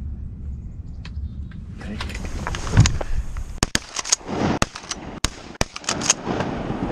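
Shotguns fired at a passing duck: a quick string of sharp reports in the second half, after the rustle of hunters rising out of a grass-covered layout blind.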